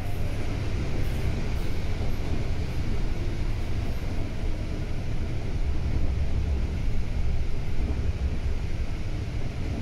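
Volvo B9TL double-decker bus on the move: a steady low engine and road rumble, swelling a little about six seconds in.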